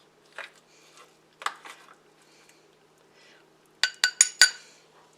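A metal utensil knocking and clinking against a dish while a portion of casserole is served: a couple of faint knocks, then a quick run of four or five sharp, ringing clinks about four seconds in.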